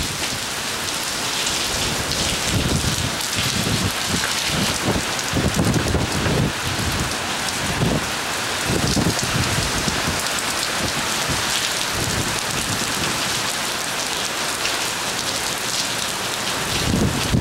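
Heavy tropical-storm rain pouring down in a steady hiss, with strong wind gusts rumbling on the microphone again and again.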